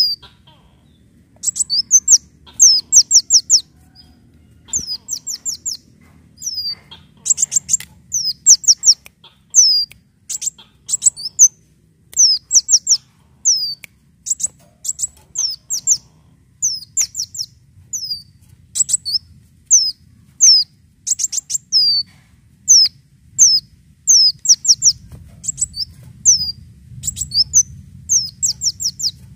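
Kolibri daun sunbird singing: quick runs of high, thin, down-slurred notes, two to six at a time, separated by short pauses.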